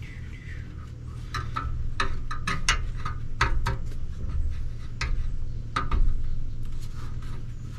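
Irregular sharp clicks and knocks of hand work on a truck's radiator hose fittings, over a steady low hum.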